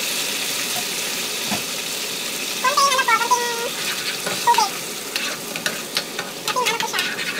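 Tomato sauce sizzling in a non-stick frying pan as a wooden spatula stirs it, with short scraping clicks of the spatula against the pan from about five seconds in. Brief voice-like calls sound about three seconds in and again a second and a half later.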